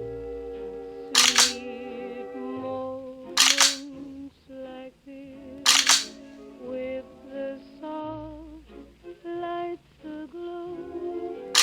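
Music-like sequence of held, stepping pitched notes, some wavering, cut by three short, loud hissing hits a little over two seconds apart.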